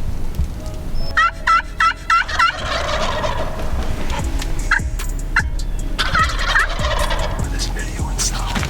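Wild turkeys calling: about a second in comes a quick run of five high notes, then a burst of gobbling, and the same pattern repeats around six seconds in.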